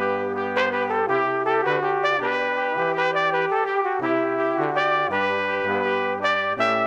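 Background music: a brass-led tune of held notes over a stepping bass line.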